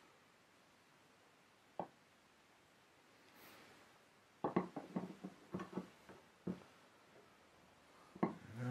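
Fabricated steel rudder irons being handled and shifted against each other on a workbench: a single click, then a cluster of light knocks and clinks about halfway through, and a couple more near the end.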